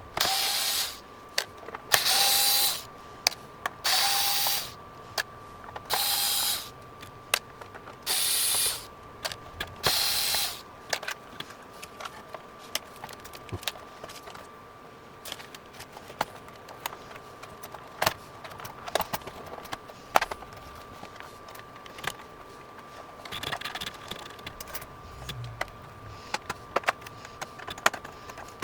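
Cordless electric screwdriver backing out the screws of a flat-screen TV's rear cover: six short whirring runs about two seconds apart, followed by many small clicks and taps as the screws and plastic parts are handled.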